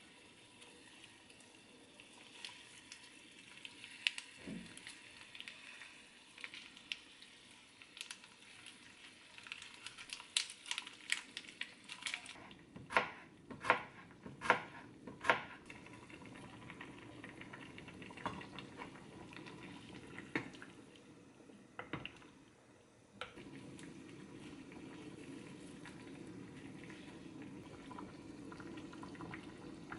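Soft tofu stew simmering in a pot on a gas burner, with scattered light taps. About halfway through come four sharp knife chops on a cutting board as green chili peppers are cut. A little over two-thirds of the way in, the bubbling of the stew becomes louder and steady.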